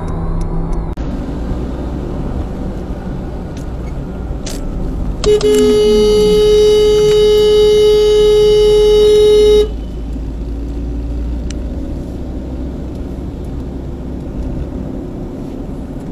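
Car horn held down for about four seconds at one steady pitch, starting about five seconds in and cutting off sharply, over the steady drone of engine and tyre noise heard inside a moving car.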